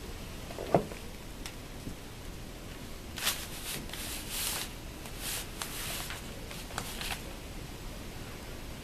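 Paper rustling and crinkling for a few seconds, starting about three seconds in, with a single knock about a second in.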